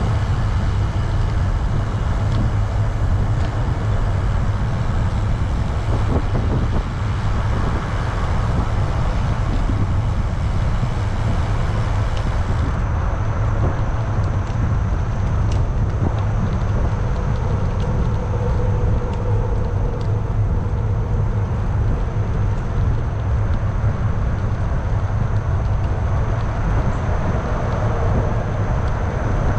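Steady road traffic noise, a constant heavy low rumble with a hiss of tyres above it and no breaks, heard from a bicycle ride beside highway traffic.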